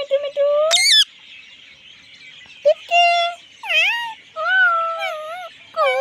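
Rose-ringed parakeet (Indian ringneck) vocalizing in a speech-like voice. A held, wavering call ends in a sharp rising squawk just before a second in. After a pause comes a run of short warbling, speech-like calls.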